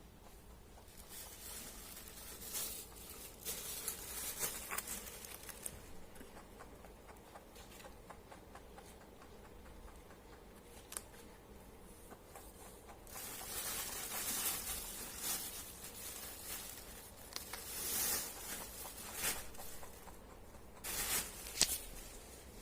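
Pet rabbit chewing its food: fine, rapid crunching that comes in bouts with quieter pauses between.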